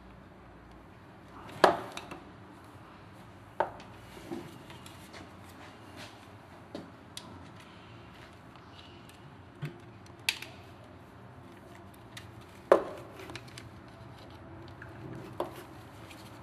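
Scattered sharp clicks and knocks of hard plastic and metal as a Flex LW1509 wet polisher's motor housing and a screwdriver are handled during reassembly after fitting new carbon brushes. About half a dozen, irregularly spaced, the loudest about 2 s in and near 13 s.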